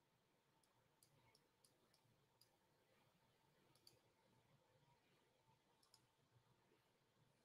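Near silence, with a few faint, scattered clicks of a computer mouse.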